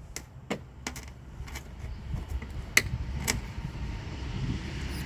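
Several sharp plastic clicks and knocks, the loudest about three seconds in, as a tail light bulb socket is handled and fitted back into its housing, over a steady low rumble.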